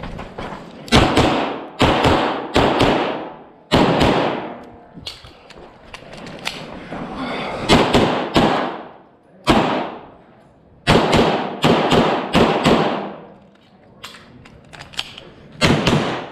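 A string of handgun shots from a competitor running an action pistol stage, often fired in quick pairs, with short pauses between groups as he moves between targets. Each shot rings out with a short echo.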